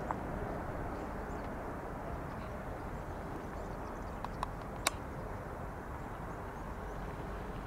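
Boeing 747-400F's four jet engines heard from a distance on final approach to land, a steady low rumble that eases slightly as the aircraft descends away. A few short sharp clicks come about four to five seconds in.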